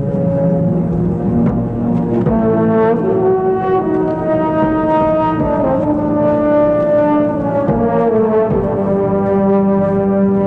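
Orchestral film score with sustained brass chords, the notes held and changing every second or two over soft percussion strokes.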